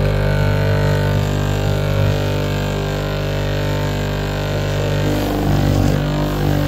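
Bench grinder fitted with buffing wheels running with a steady electric hum while a leather belt is held against the waxed wheel to polish it.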